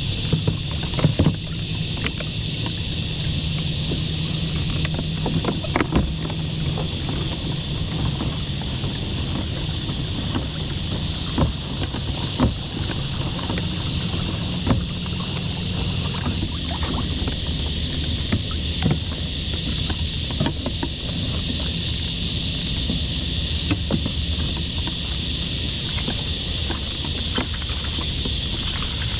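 A crab net hauled up by its rope and handled over a kayak, with scattered knocks, clicks and water drips as it comes aboard. A steady high-pitched hiss and a low hum run underneath.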